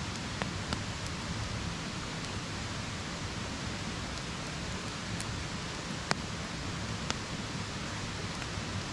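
Steady rushing of a small mountain stream, an even hiss with no change in level, with a few short sharp clicks over it.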